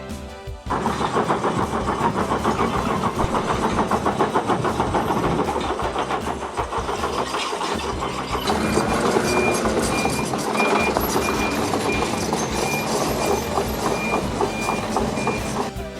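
Heavy construction machinery running on a road-building site, its engine noise mixed with rattling and clanking. From about halfway a back-up alarm beeps steadily, about twice a second.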